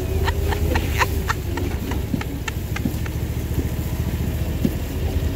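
Vehicle engine running with a steady low rumble, with a run of sharp clicks and knocks over the first three seconds or so.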